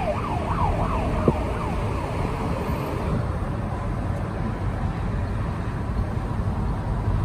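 Steady road and engine noise inside a moving car's cabin, with a siren sounding in quick, regular rising-and-falling sweeps that fade out about two seconds in. There is a single click just over a second in.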